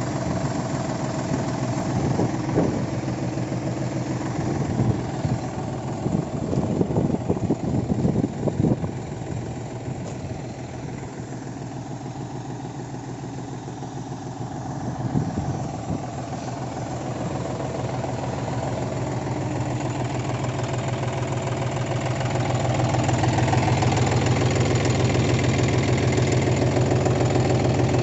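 A John Deere 5042 tractor's three-cylinder diesel engine running steadily, with some irregular knocks in the first several seconds. About two-thirds of the way through, the engine speed gradually picks up and then holds at the higher speed.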